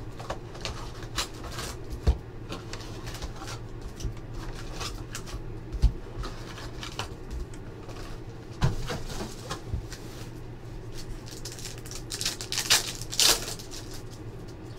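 Trading-card packs and a cardboard hobby box being handled: foil packs and cards rustling and crinkling, with scattered light clicks and several louder rustles, the loudest about thirteen seconds in.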